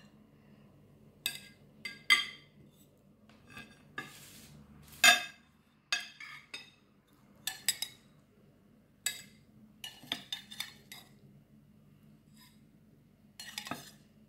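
Cutlery clinking and knocking against ceramic plates as grilled beef patties are served out: a dozen or so sharp clinks at uneven intervals, the loudest about five seconds in, with a brief scrape just before it.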